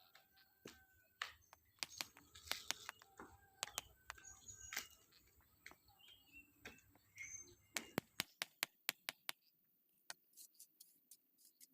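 Concrete paving blocks clicking and knocking against each other as they are set in place: scattered sharp knocks, with a quick run of about a dozen clicks around eight seconds in. Short high chirps sound here and there among them.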